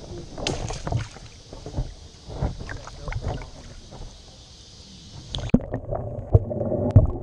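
Water splashing and sloshing in irregular bursts as a landing net is dipped and moved through pond water. About five and a half seconds in, the sound changes abruptly.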